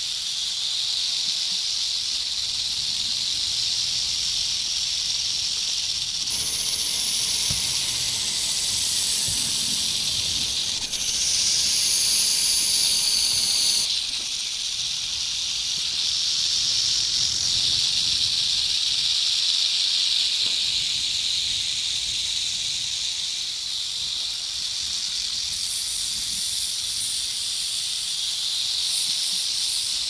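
Snakes hissing: a continuous, layered hiss, with a sharper, higher hiss joining about six seconds in for roughly eight seconds, and again for the last few seconds.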